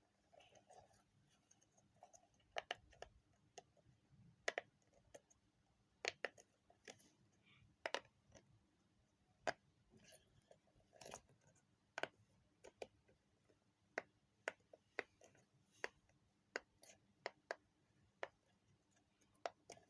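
Silicone pop it fidget toy bubbles being pressed through, giving short soft pops at an irregular pace of about one or two a second.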